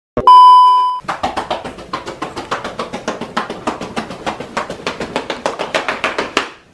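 A TV colour-bars test-pattern beep: a steady 1 kHz tone lasting just under a second, cutting off suddenly. It is followed by about five seconds of a fast, even rhythm of short ticks.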